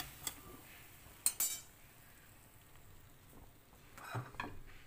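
A slotted metal spatula clinking as a cooked paratha is lifted off the iron griddle onto a plate: a light tap, then one sharp clink with a short ring about a second in. Faint handling sounds follow near the end.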